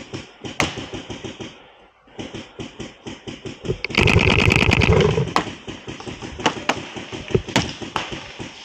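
Paintball marker fire: scattered single sharp shots and a loud, rapid burst of fire about four seconds in that lasts just over a second, over a run of soft quick tapping.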